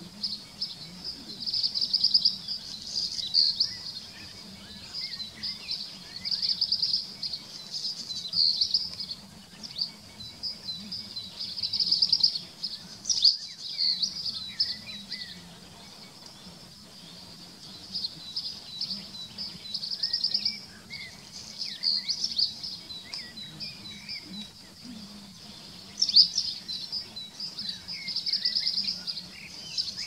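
Songbird singing: high, fast trilled phrases about a second long, repeated every couple of seconds, with softer chirps in between.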